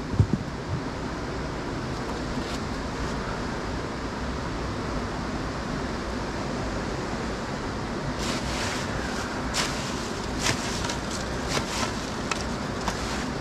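Steady rushing of the Youghiogheny River's Dartmouth Rapids, with a couple of low thumps at the start and a scatter of sharp clicks and knocks in the second half.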